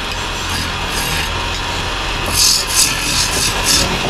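Long-handled gouge cutting a spinning log on a wood lathe: a steady scraping of wood over the low hum of the machine. From a little past halfway it turns into a quick run of about five sharper, hissing cuts.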